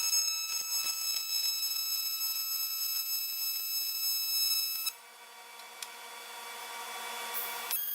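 TIG welding arc on aluminium, a steady high-pitched buzz that cuts off about five seconds in. A lower-pitched arc buzz then runs until just before the end.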